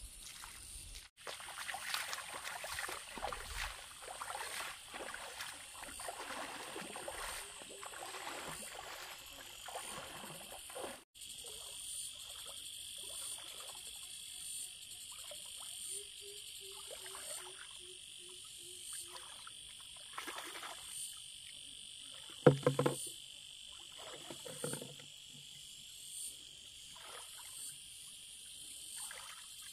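Frogs and insects calling: a high chirp repeating about once a second, a steady insect trill that sets in about 11 seconds in, and a quick run of low frog croaks around the middle. Short scuffing noises come and go, with one louder thump about 22 seconds in.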